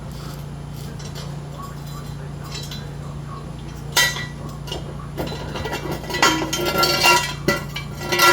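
Metal clinking and clanking with a ringing tone, one sharp clank about four seconds in and then a rapid run of rattles and clanks near the end, as steel jack stands and jack gear are handled after the truck is let down. A steady low hum runs underneath.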